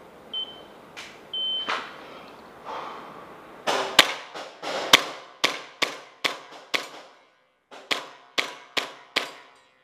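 Three short timer beeps, then a longer start beep, then an airsoft pistol firing a rapid string of about fifteen sharp shots with a short pause about seven seconds in. Each shot echoes off the bare concrete walls.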